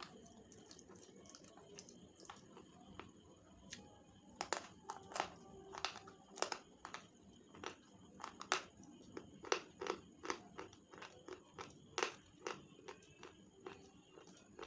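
Slate pencils being bitten and chewed: a run of sharp, dry crunches, about two a second, getting louder about four seconds in.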